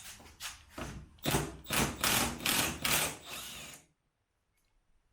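Ratchet wrench working the Jeep Wrangler's tailgate hinge bolts loose in a run of rough clicking strokes, stopping suddenly about four seconds in.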